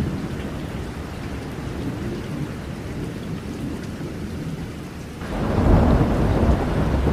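Thunderstorm sound effect: a steady low rumble of thunder with rain, then a louder roll of thunder swelling in suddenly about five seconds in.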